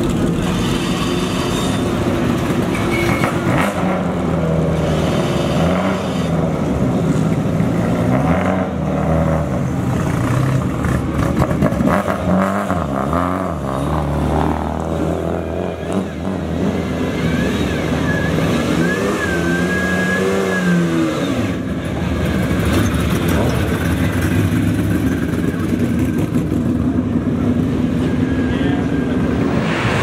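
Ferrari 250 GT SWB 'Breadvan''s V12 running at idle, with repeated blips of the throttle making the revs rise and fall several times as the car pulls slowly away.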